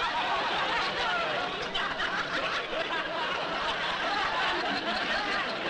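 Studio audience laughing, many people at once in a long, steady wave of laughter.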